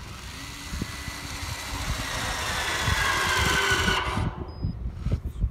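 TorcUP Volta battery-powered torque wrench running its motor and planetary gearbox under load, the whine growing louder for about four seconds before it stops. A short high beep follows, the signal that the set torque has been reached.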